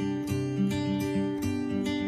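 Background music: plucked and strummed acoustic guitar with a steady rhythm.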